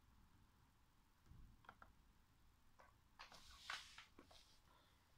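Near silence with a few faint computer-mouse clicks, the clearest a small cluster about three and a half seconds in.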